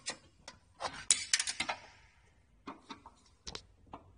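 Light metallic clinks and taps of a screwdriver being handled against a heat-sealing machine's metal frame: a quick cluster about a second in, then a few scattered clicks.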